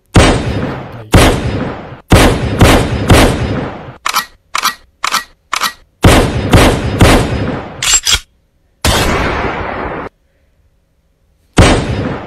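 Soundtrack of a CapCut template playing in the editor's preview: a series of loud, sharp hits, each dying away, in a stop-start rhythm, with one longer hissing stretch about nine seconds in and a short gap before the hits start again.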